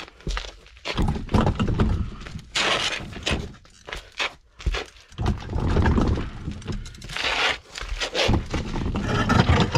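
Irregular thumps, scrapes and rustling of a person crawling and shifting about on a dirt-floored crawlspace.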